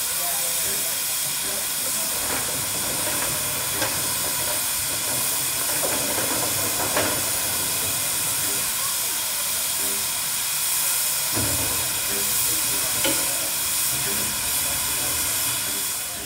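Steam hissing steadily from a standing USATC S160 2-8-0 steam locomotive, with a few faint knocks in the background.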